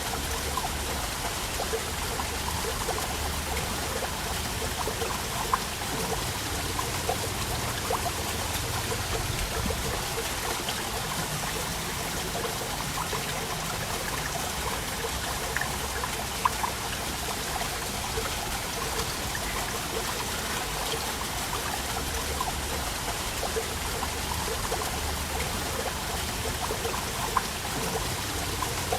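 Small waterfall splashing and trickling steadily, with many small irregular drips and a few sharper splashes.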